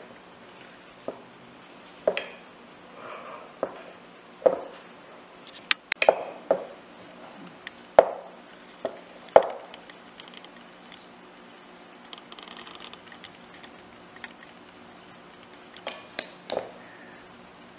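Irregular knocks and clinks of a spatula and hands against a large glass mixing bowl while crumbly rice-flour and tapioca-starch dough is stirred and worked, each strike ringing briefly.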